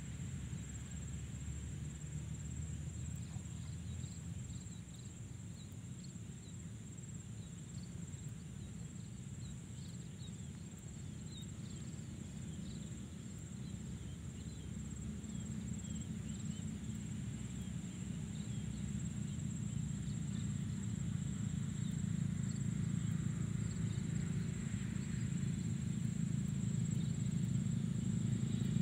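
Outdoor field ambience: a steady low rumble that grows louder toward the end, under a thin steady high insect whine and faint scattered chirps.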